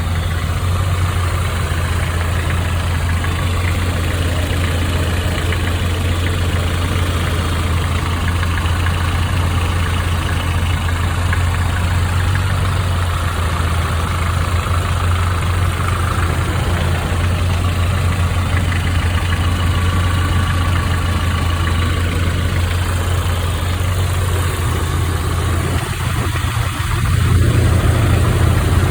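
1995 Nissan truck's 2.4-litre four-cylinder engine idling steadily with a valve lifter ticking and knocking noise, the sign of noisy lifters. It gets a little louder near the end.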